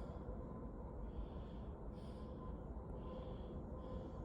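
A man breathing close to the microphone: soft, slow, regular breaths over a faint steady background hum.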